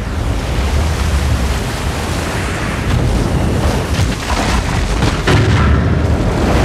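Film sound effects of a giant tsunami wave: a loud, continuous roar of rushing water over a deep rumble, with a cluster of heavy crashes about four to five seconds in as the flood strikes buildings.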